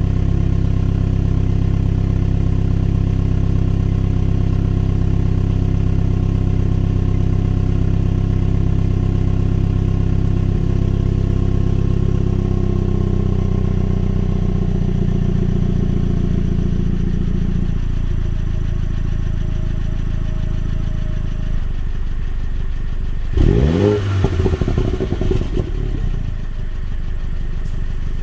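2021 Mini John Cooper Works' turbocharged four-cylinder engine idling through its exhaust, the idle speed stepping down twice. It is then blipped a few times in quick succession near the end, each rev rising and falling.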